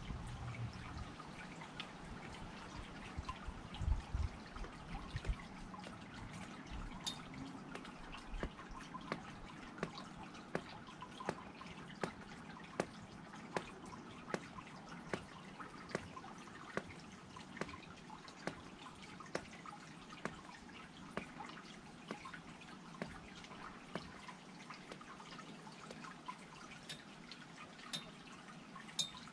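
Small tiered garden water fountain trickling, with a regular drip about every two-thirds of a second. A few low thumps in the first five seconds.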